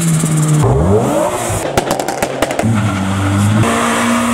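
Modified car engines revving hard. About half a second in the pitch climbs steeply, a burst of sharp crackles follows, then an engine is held at steady high revs, stepping up once, as a Skoda Octavia estate does a tyre-smoking burnout.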